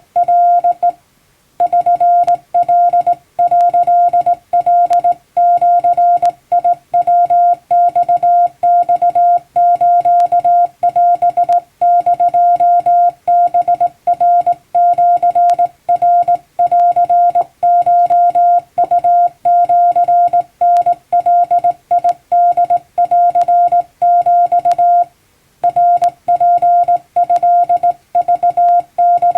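Japanese wabun Morse code sent by hand: a single steady beep keyed on and off in dots and dashes at a brisk, even pace. There is a short break about a second in and another a few seconds before the end.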